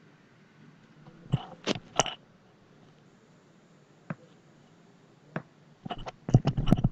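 Scattered clicks of a computer mouse and keyboard. There are a few single clicks, then a quick run of clicks near the end.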